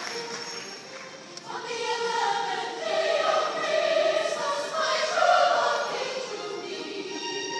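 Large choir singing with an orchestra, starting about a second and a half in after the last of the applause dies away.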